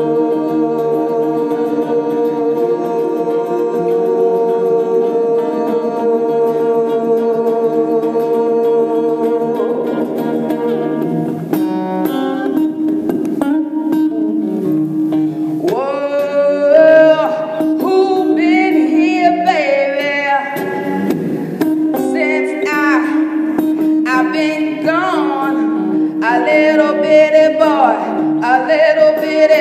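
Electric guitar holding a sustained chord; about ten seconds in, a woman's voice joins, singing sliding, wavering notes over a steady guitar tone.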